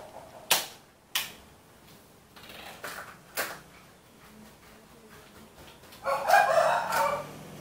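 Hard plastic clicks and knocks as the parts of a pink toy kitchen set are handled and fitted together, a few separate sharp clacks. About six seconds in, a louder rough, grainy sound lasting just over a second.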